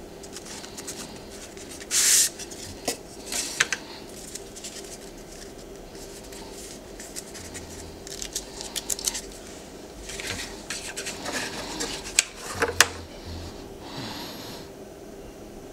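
Hands handling cardboard tube packaging and a stylus: scattered rubbing and scraping with a few sharp clicks, the loudest scrape about two seconds in.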